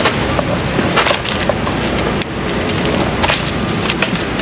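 Groceries being unloaded from a metal shopping cart into an SUV's cargo area: a few sharp knocks and rattles over a steady rushing noise.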